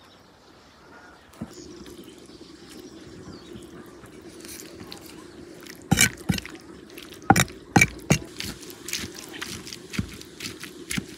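Cleaver chopping small raw fish on a wooden chopping block: a run of sharp, uneven knocks starting about halfway through, with softer wet handling of the fish before it. A steady low hum lies under it.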